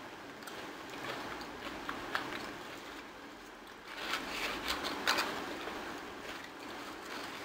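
Close-up eating sounds: chewing and handling food, with scattered sharp clicks and a louder crackly stretch about four seconds in.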